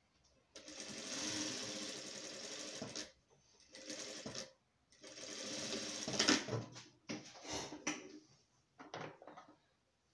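Industrial single-needle lockstitch sewing machine stitching through layered fabric in spurts. It runs for about two and a half seconds, then in several shorter stop-start runs as the work is guided along the edge.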